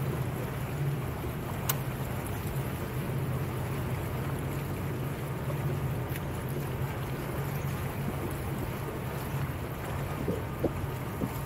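Motorboat engine running steadily with a low hum while under way, over the rush of water along the hull.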